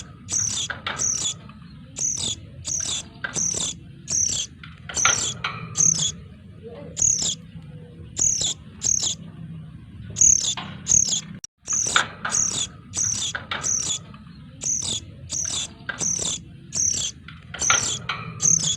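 Noisy high-pitched chirping of sogon chicks, short sharp calls repeated in quick groups of two or three, played as a bird-trapping lure recording. The sound cuts out briefly a little past halfway, then resumes.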